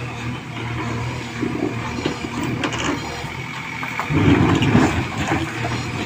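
JCB 3DX backhoe loader's diesel engine running steadily as the machine works in mud, with a faint high steady whine over it. It grows louder for about a second around four seconds in.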